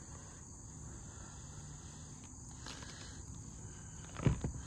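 Steady high-pitched chorus of insects. Near the end come a few brief low thumps as the test-lead cables are handled.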